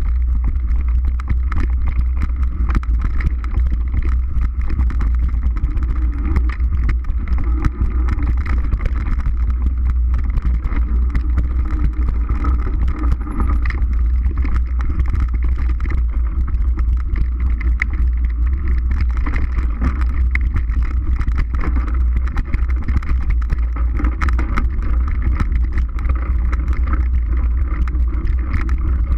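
Mountain bike riding on a dirt forest trail, heard close up: a steady low rumble of wind and tyre noise, with many small rattles and knocks throughout.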